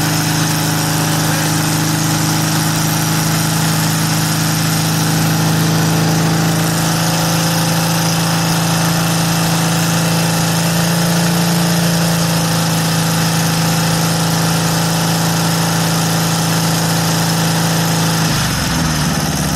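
Air-cooled flat-four engine of a VW Thing running steadily while its carburetor is adjusted; about a second before the end the engine speed dips and wavers. The engine has just been started after sitting for months and is running rich.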